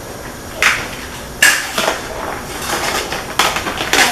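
Kitchen handling sounds as a salad is made in a plastic bowl and a clear plastic container is handled: several sharp plastic knocks with rustling in between. The loudest knock comes about one and a half seconds in.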